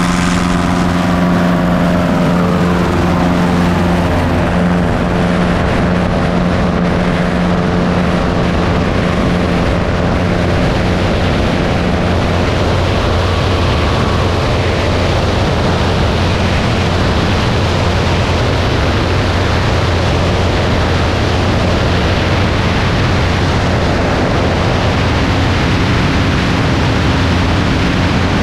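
Single-engine Piper Arrow at full takeoff power, heard from a camera on the outside of the wing. The engine and propeller hum is clear at first, then is soon buried under a loud, steady rush of wind as the plane gathers speed and climbs out.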